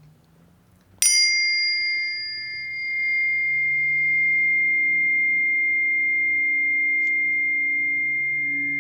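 Planetary tuning fork struck about a second in: a bright metallic ping whose high overtones die away within a couple of seconds, leaving a steady, pure ringing of several tones that sustains.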